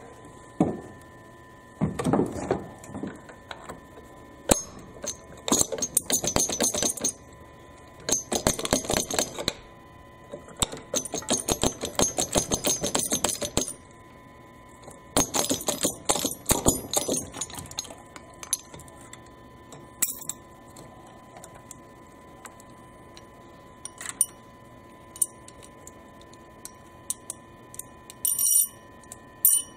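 Bursts of rapid metallic clicking and clinking as the rocker arms and pushrods come off the cylinder head of a 283 small-block Chevy V8, then a few scattered clinks of loose valvetrain parts.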